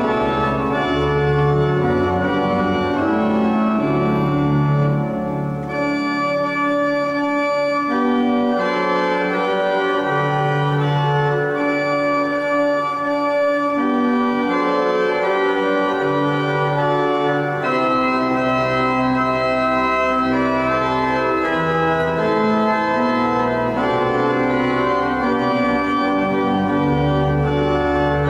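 Organ playing slow, sustained chords over held bass notes, the chords changing every second or two.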